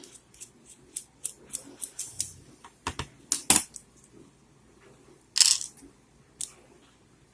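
Small metal clicks and clinks from a padlock and the tools working on it, irregular and sharp, with a short scrape about five seconds in.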